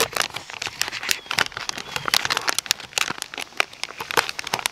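A resealable foil-and-clear plastic soft-bait bag crinkling and crackling irregularly as it is handled in the hands.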